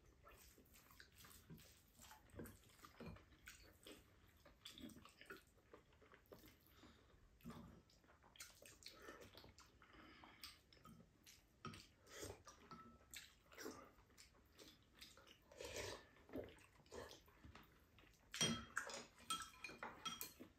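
Faint eating sounds: spoons and chopsticks scraping and clicking against ceramic bowls, with soft chewing. A cluster of sharper, ringing clinks comes near the end.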